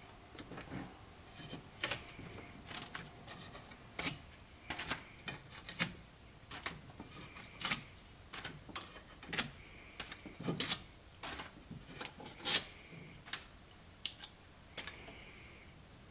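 Irregular scraping and clicking of a hand tool working the old membranes off an organ's wooden bar, roughly one to three strokes a second. Some strokes carry a brief squeak.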